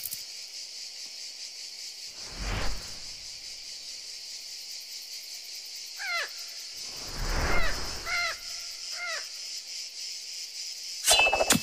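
Cartoon sound effects for an animated worm: a few short squeaky calls that bend down in pitch, and two whooshing swishes, over a steady high insect drone like crickets or cicadas. A sharp clatter comes near the end.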